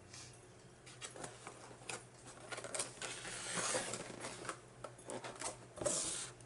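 Someone biting and chewing crunchy fried onion rings: a run of crisp crunches and mouth clicks, with a denser stretch of crunching around the middle and a sharp crunch near the end.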